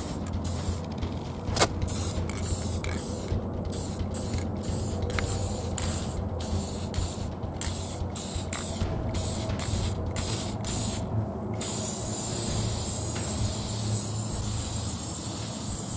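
Aerosol can of Rust-Oleum 2X Ultra Cover spray paint hissing in many short bursts with brief breaks, then spraying unbroken for the last few seconds. A steady low hum runs underneath.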